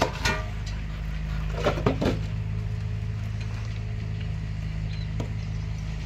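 Steel formwork plates being knocked loose and pulled off a freshly cast concrete column: sharp metal clanks and knocks at the start and again about two seconds in, with a single click near the end. A steady engine drone runs underneath.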